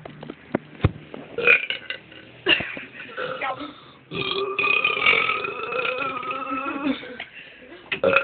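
A person belching: a few short burps in the first four seconds, then one long, drawn-out belch lasting about three seconds, and a brief burst near the end.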